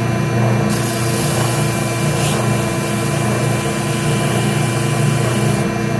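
Ridgid oscillating spindle sander running with a steady hum, its sanding drum rasping against the edge of a bandsawn wooden piece from about a second in until near the end.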